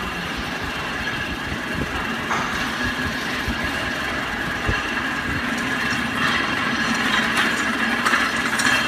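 Hydraulic power unit of an alligator shear running: an electric motor and pump with a steady whine and a few light knocks as the jaw cycles. It grows louder and harsher in the second half.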